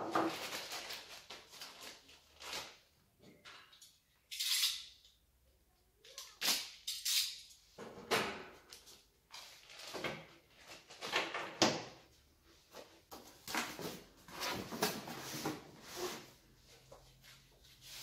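Unpacking noises: irregular rustling and crinkling of plastic and paper packaging and cardboard, with a few sharp knocks as things are handled on the workbench.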